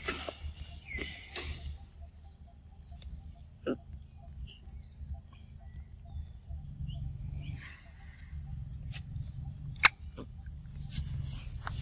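Young macaque eating ripe mango, with wet smacking clicks as it bites and chews and one sharp loud click about ten seconds in. Under it, a steady high insect drone and a few short bird chirps.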